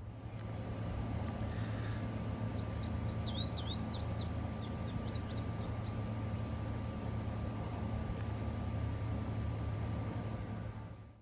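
Steady low background hum, with a bird twittering a quick run of short chirps from about two to six seconds in.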